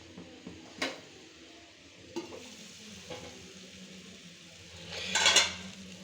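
Chicken sizzling in a pan as the last of its cooking water boils off, with a spoon stirring it and clicking against the pan a few times. A louder burst of sizzling and scraping comes about five seconds in.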